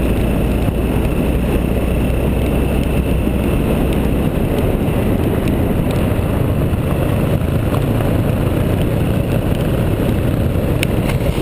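Motorcycle engine running steadily while riding on a gravel road, under wind and road noise; the engine note changes about four seconds in.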